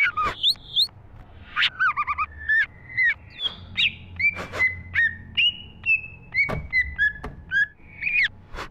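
Greater green leafbird (cucak ijo) singing continuously: a fast, varied string of short whistled notes that slide up and down, mixed with sharp clicking notes.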